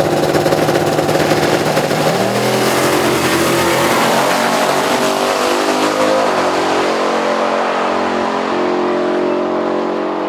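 Two big-rim donk cars at a drag-race start. Their engines are held at steady revs, then about two seconds in the pitch climbs as they launch and pull away. A little after six seconds the pitch drops and climbs again with a gear change, continuing as the cars run off down the strip.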